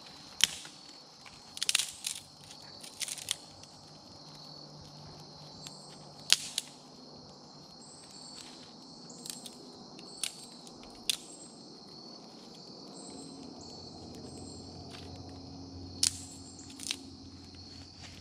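Dry twigs snapping and cracking, about a dozen sharp snaps spread out, as kindling is broken and fed onto a small fire just lit in a grass tinder bundle. Insects chirp steadily underneath.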